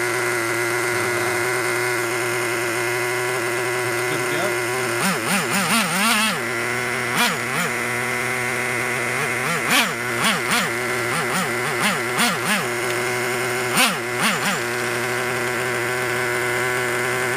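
Traxxas T-Maxx 2.5R's small nitro engine running at a steady high idle, with repeated quick throttle blips that send the pitch up and back down several times in the middle of the stretch.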